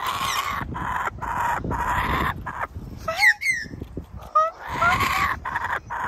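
Male laughing kookaburra giving a run of harsh, scratchy squawks like a nestling's begging call, with a few short whistled chirps among them. The owner believes this baby-like call is the sound of feeding his young.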